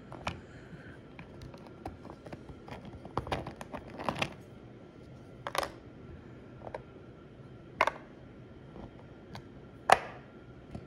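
Irregular light clicks and knocks of hard Dwarven Forge miniature terrain pieces and props being touched and handled, the sharpest knock near the end.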